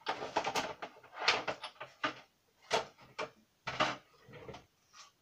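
Short clacks and rustles of hands handling craft materials, about eight in five seconds, as a die and plates are set up for a Big Shot die-cutting machine. The sounds stop just before the end.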